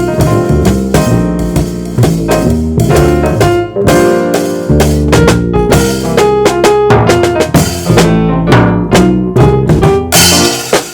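Live jazz trio playing, with busy drum kit over keyboard and bass.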